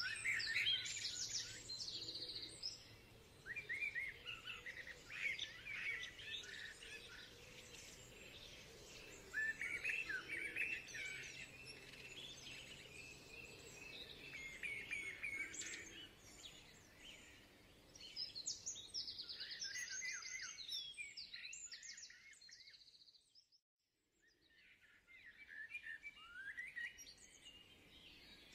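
Songbirds chirping and singing outdoors, with quick runs of short, high calls that come and go in clusters. The sound cuts out briefly about twenty-three seconds in, then the birds resume.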